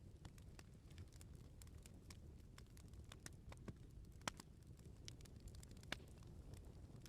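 Wood bonfire crackling: irregular small snaps and pops over a soft, steady low rush of the flames, with two sharper pops about four seconds in and near six seconds.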